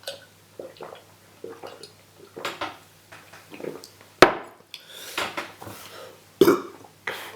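A cup and drink being handled: a run of clinks, knocks and scrapes, with a sharp knock about four seconds in and another about six and a half seconds in.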